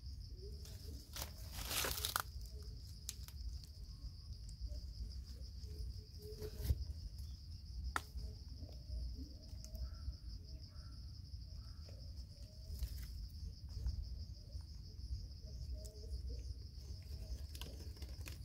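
Insects trill steadily at a high pitch. Short rustles and crackles cut across it now and then, the loudest about two seconds in.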